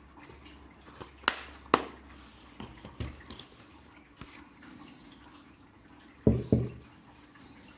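Plastic Blu-ray case and booklet handled on a table. Two sharp plastic clicks a little over a second in, like the case snapping shut, then light rustling and a tap as it is set down. Near the end come two dull thumps, the loudest sounds.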